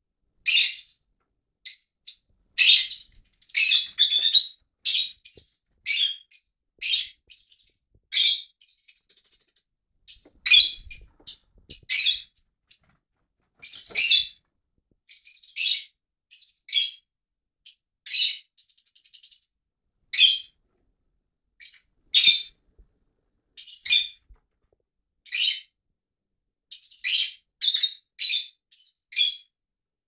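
Lovebirds calling back and forth, pet lovebirds answering lovebirds on a television video: short, high-pitched chirps about once a second, now and then two or three in quick succession.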